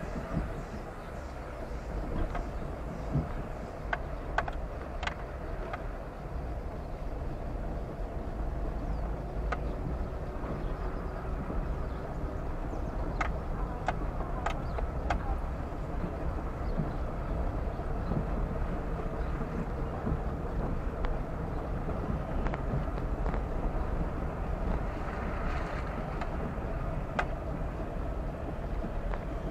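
Car driving along: a steady low rumble of engine and road noise, with a few sharp clicks and knocks scattered through it.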